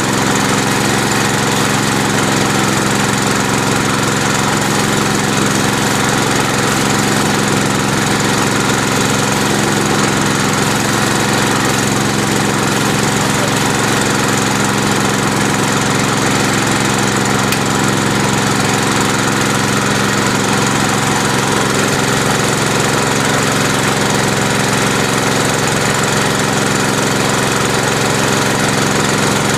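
An automated sheep dip machine running: a small engine drones steadily at one constant speed throughout.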